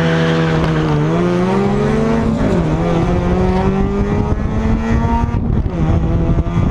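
Car engine held at high revs. Its pitch climbs slightly, drops about two and a half seconds in, then holds steady.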